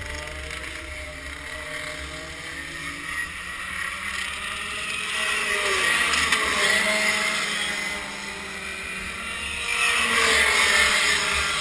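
Rotax Max 125 kart's single-cylinder two-stroke engine running on track, its pitch rising and falling as the throttle is opened and closed, with wind on the on-board microphone. It is loudest around the middle and again near the end.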